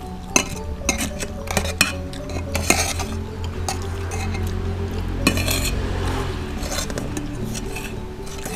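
Metal spoons clinking and scraping against plates as two people eat, in many short, irregular taps.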